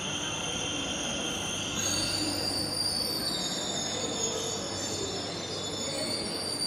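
Metro train moving along the platform with a steady high-pitched squeal over a low rumble; the squeal shifts higher about two seconds in.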